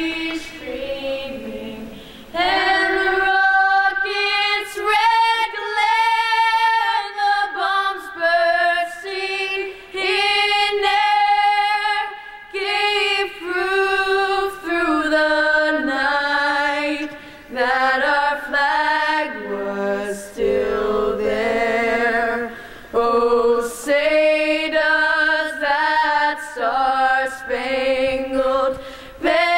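Three young women singing a national anthem together into a handheld microphone, unaccompanied, in long held phrases with short breaks for breath.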